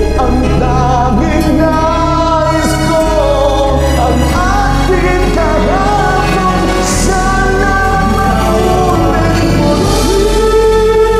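A man singing a Tagalog pop ballad over a karaoke backing track, holding one long note near the end.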